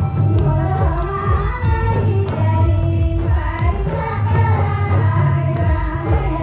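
A group of voices, women's among them, singing a devotional song together over music with a steady beat.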